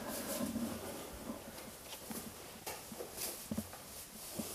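Rustling of a jacket as hands work at its front and pockets, with a few light knocks and clicks scattered through.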